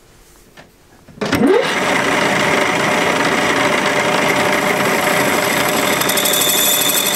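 An old metal lathe, about 80 years old, is switched on about a second in: its motor winds up with a short rising whine and then runs steadily with a dense mechanical whir. A higher steady tone joins near the end.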